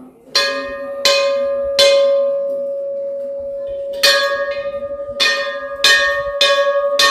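A hanging metal temple bell, rung by hand about eight times: three strikes, a pause of about two seconds, then five quicker strikes. Each strike rings on, and its steady tone carries through the whole series.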